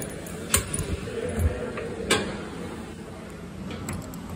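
Two sharp metal clicks about a second and a half apart, with a lighter tick just after the first, as a gym weight machine's spring-loaded adjustment pin and latch are set, over steady room noise.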